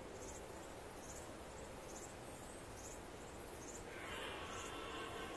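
Faint insects chirping in a regular rhythm, about two high chirps a second, over quiet outdoor ambience. About four seconds in, a faint sound made of several steady tones comes in.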